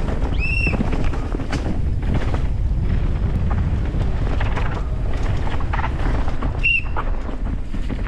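Downhill mountain bike running down a rough, dusty track: steady wind rush and rumble with constant rattling and knocking over the terrain. Two short high-pitched squeals come through, one about half a second in and one near the end.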